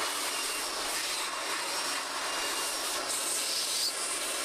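Electric air blower running steadily, blowing abrasive brick dust out of an angle grinder's ventilation slots to keep it from wearing the motor brushes.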